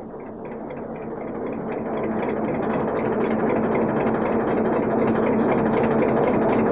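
Heavy boat engine running with a steady drone, growing gradually louder over the first three seconds.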